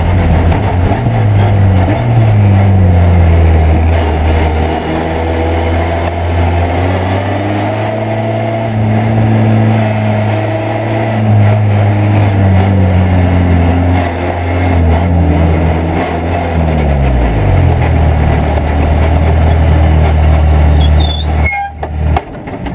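Racing car's engine heard onboard, an open-cockpit car under way with its pitch rising and falling gently over wind rush. After about 17 seconds the engine note drops to a steady low run, then stops near the end as the car halts in the pits, followed by a few clicks.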